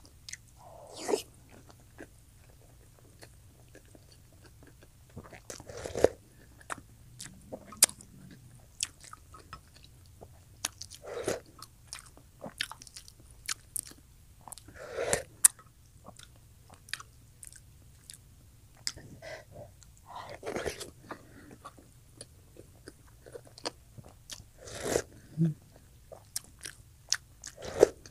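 Close-up mouth sounds of a person eating boiled eggs and instant noodles: wet chewing with many sharp smacking clicks, and a louder mouthful every four or five seconds.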